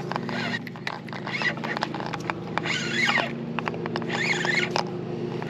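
Spinning reel being cranked to bring a hooked fish in, with small clicks, over a steady low hum. Several short, high, squeaky chirps rise and fall about one and a half, three and four and a half seconds in.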